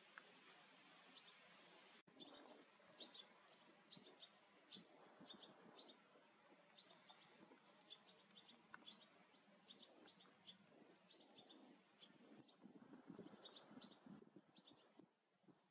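Barn swallows twittering: faint, short high chirps in quick clusters, repeated throughout.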